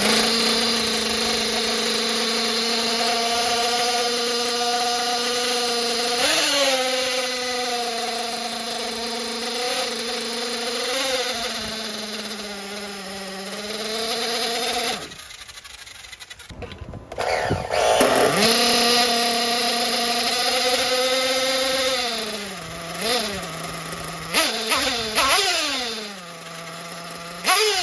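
Small nitro glow engine of a 1/8-scale nitro truggy running on its first fuel fill while its carburettor is tuned, with several short revs. About halfway through it cuts out, and it runs again a couple of seconds later, settling to a lower idle.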